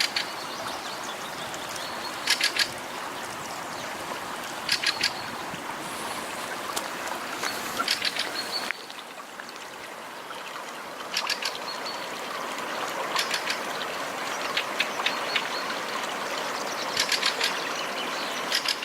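Floodwater of the swollen Glomma river rushing steadily, with a bird calling repeatedly in short groups of three or four quick high notes every few seconds.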